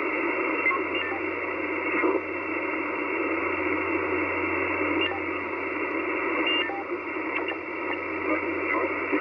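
Ham radio receiver hiss: steady band noise from the transceiver's speaker, squeezed into a narrow voice band, with only faint traces of a weak voice under it.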